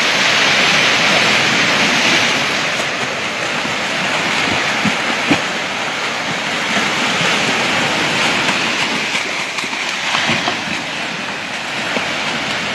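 Sea surf washing in over a rocky shoreline: a steady, loud rush of breaking waves, with a couple of brief knocks about halfway through.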